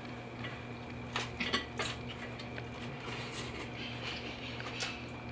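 A bite of a fish taco being chewed: a few soft clicks and taps, several between about one and two seconds in and one more near the end, over a steady low electrical hum.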